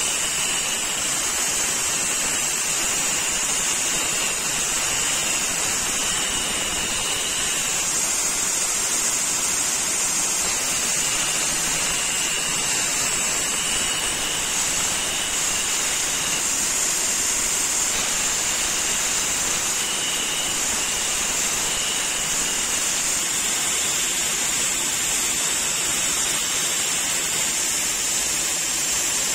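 Belt grinder running, with the steel blade of a forged sculpture adze held against the abrasive belt for sharpening, throwing sparks: a steady, loud grinding hiss with a thin high tone that comes and goes.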